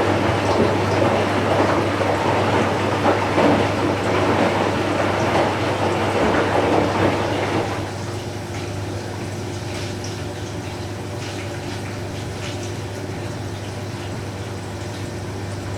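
Candy Smart Inverter front-loading washing machine running, with water rushing into it over a steady low hum. About eight seconds in the rushing drops away, leaving a quieter hum.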